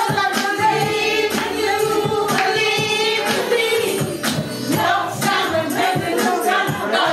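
Several women singing together into microphones, held notes over a musical backing with a steady beat of about one stroke a second, karaoke-style.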